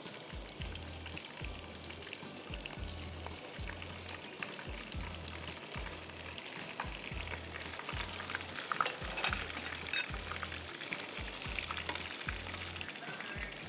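Chicken cutlets shallow-frying in a pan of hot oil: a steady crackling sizzle, with sharper pops and spits scattered through it that are busiest around eight to ten seconds in.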